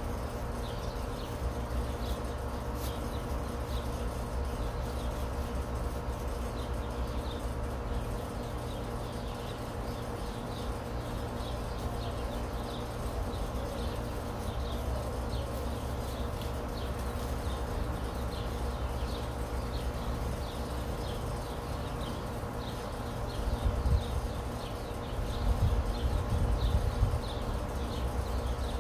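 Outdoor background sound: a steady low rumble with short, high chirps repeating about every half second. A few bouts of louder low buffeting come near the end.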